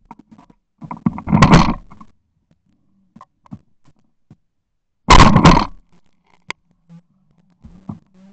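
Two loud shotgun reports, one about a second in and one about five seconds in, fired at clay targets during a team flush.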